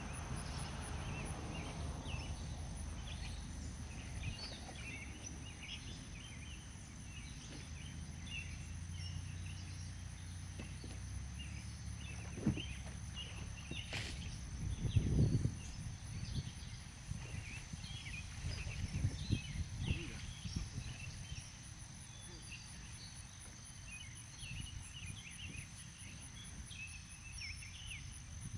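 Insects chirping steadily, one high thin whine with a faster pulsing trill above it, with scattered short chirps and a low rumble underneath; a few dull thumps come around the middle.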